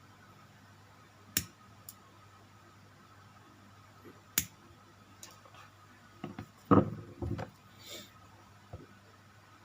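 Scattered sharp clicks and knocks of plastic model kit parts and tools being handled on a desk, with a quick cluster of knocks about two thirds of the way through and a short scrape just after. A faint steady hum runs underneath.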